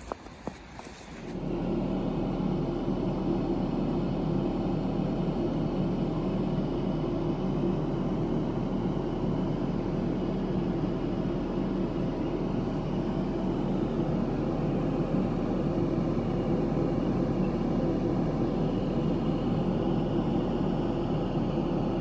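Steady low hum and whir of a mains-powered workshop machine running without change.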